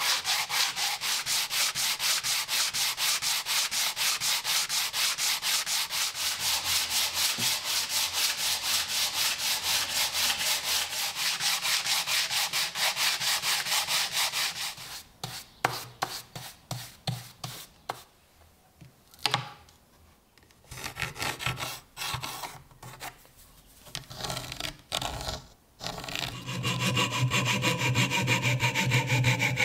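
A wooden block rubbed by hand on sheet sandpaper laid flat on a board, in quick, even back-and-forth strokes, for about the first half. Then come scattered knocks and scrapes. Near the end a scroll saw starts running with a steady hum and cuts into a wooden blank.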